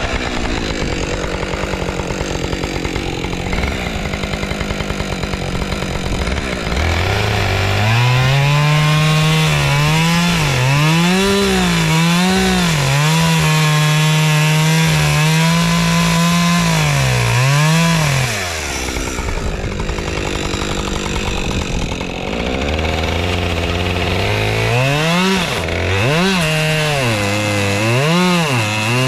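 Husqvarna 550 XP two-stroke chainsaw idling, then revved up and cutting into a wooden log, its engine note dipping and recovering again and again as the chain bogs under load. It drops back to idle about two-thirds of the way through, then revs and cuts again near the end.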